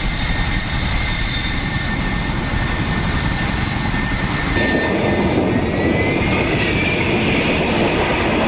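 F-35B fighter jet's engine running loudly with a steady high whine over broad jet noise. About halfway through, the noise grows fuller, and the whine then rises slightly in pitch.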